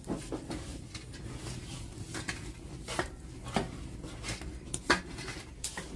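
Metal shovel scraping and knocking as it stirs burning brushwood inside a clay tandoor oven, with irregular clicks and clinks, the sharpest about five seconds in.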